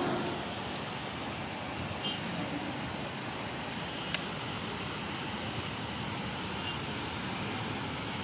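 Heavy rain falling in a steady hiss, with one brief click about four seconds in.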